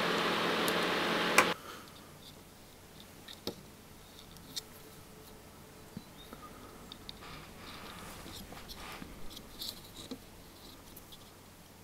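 A steady mechanical hum cuts off suddenly with a sharp click about a second and a half in. After that come quiet, scattered small clicks and taps as hands handle a small electronics module, its metal panel, jacks and switches.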